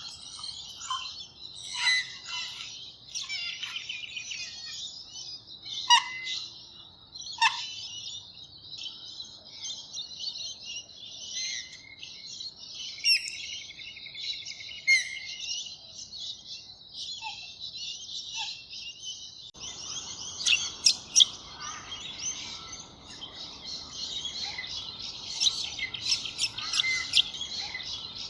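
A chorus of many small birds chirping and twittering together, with louder single calls standing out now and then. About two-thirds through, a steady background hiss comes in under the birdsong.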